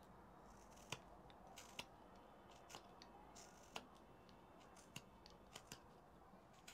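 Carving knife slicing chips off a wooden block, heard as about nine short, crisp cuts at uneven intervals over a quiet hiss.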